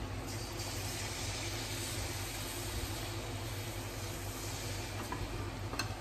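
Malpua batter deep-frying in hot oil in a kadai: a steady sizzle, with a short click or two near the end.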